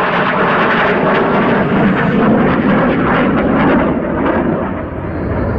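Saab J35 Draken's single jet engine, loud during a display pass, a continuous rush of jet noise with a ragged crackle running through it, easing slightly near the end.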